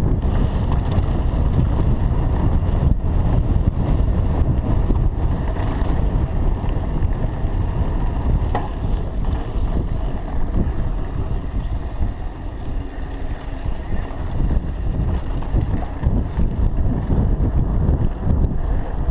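Mountain bike rolling down a dirt singletrack trail: steady tyre noise on the dirt and short rattles and knocks of the bike over bumps, under heavy wind buffeting on the microphone.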